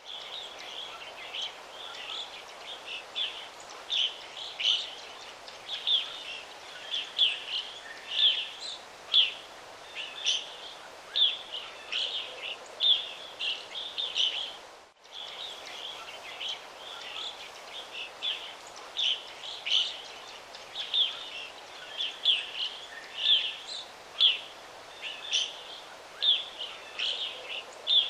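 Birds chirping: many short, high calls in an irregular stream over a steady background hiss, with a brief break about halfway through.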